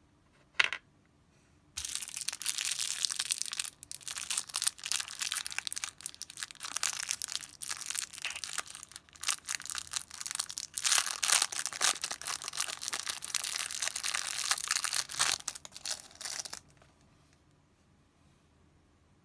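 Thin clear plastic wrapper crinkling and tearing as it is worked open by hand, for about fifteen seconds, then stopping. A single sharp click comes just before it.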